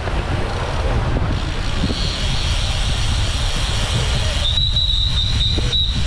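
Bicycle brakes squealing in a thin, high, steady-pitched squeal that starts faintly about two seconds in and turns loud and stop-start in the second half, over a steady rush of wind on the microphone of a moving bike.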